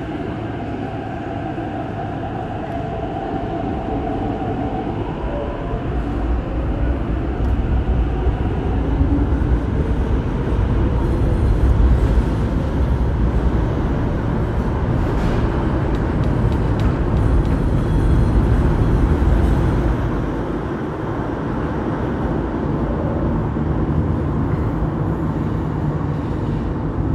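MTR East Rail Line electric train pulling out of an underground platform into the tunnel. A motor whine in the first few seconds gives way to a deep rumble of wheels on rail that builds to its loudest around the middle, then eases as the train draws away.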